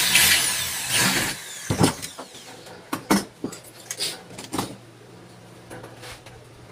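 Handheld corded electric drill boring into an aluminium door-frame profile for about the first second, ending in a falling whine as the motor runs down. Then several sharp knocks and clatters as the drill and metal parts are handled on the workbench.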